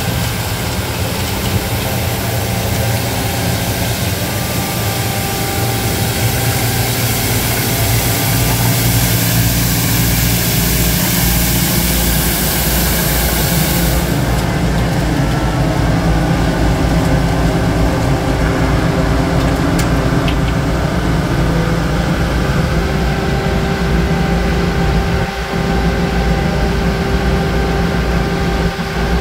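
Schmidt Swingo 200+ compact street sweeper's diesel engine running steadily as it drives, with its front brushes turning on the brick paving. A loud high hiss over the engine cuts off suddenly about halfway through, leaving the engine running.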